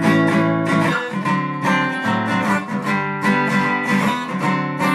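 Guitar strummed in a steady rhythm, the chords ringing on between strokes: the instrumental lead-in to a song.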